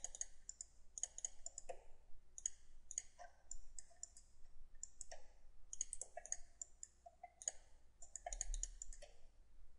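Computer mouse clicking: many short, sharp clicks in irregular quick runs.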